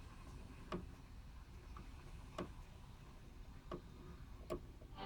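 Faint, irregularly spaced clicks, about five of them, from the controls of an Ocean-209 portable radio being worked by hand.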